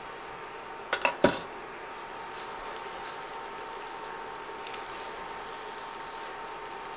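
A quick run of clinks and knocks about a second in, the last and loudest a sharp clink, as a metal measuring spoon and a glass soy sauce bottle are put down on a wooden board. After that only a low steady hiss with a faint hum.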